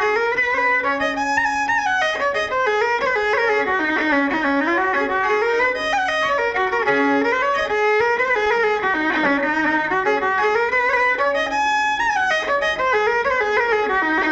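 Irish céilí dance music led by fiddle, playing quick runs of notes that climb and fall.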